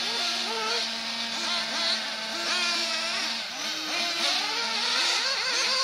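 Several 1/8-scale nitro RC buggy engines revving up and easing off again and again as the cars run the track. Under them a steady engine note, like one buggy idling, holds until about halfway through and then stops.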